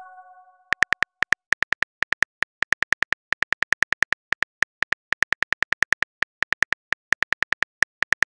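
Phone keyboard typing clicks from a texting app's sound effect: a quick, uneven run of short, sharp taps, several a second, as a message is typed out. The last ring of a message chime fades out at the start.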